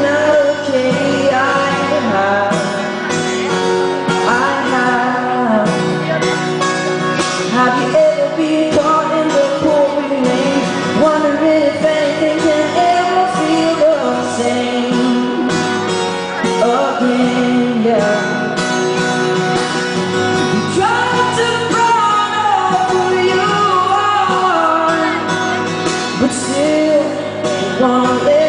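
Male voice singing a pop song live, accompanied by his own acoustic guitar.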